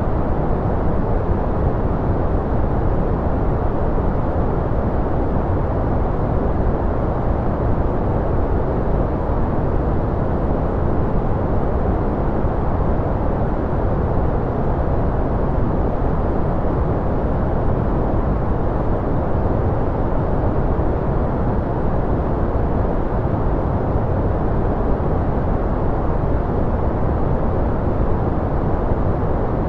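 Steady, unchanging generated white-noise track, a dense muffled hiss weighted toward the low end with little treble.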